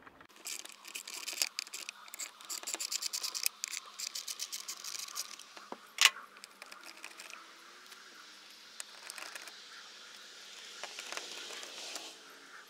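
Socket ratchet clicking in quick runs while backing out the 8 mm bolts that hold a side mirror, with one sharp, louder knock about six seconds in, then fainter scraping and ticks.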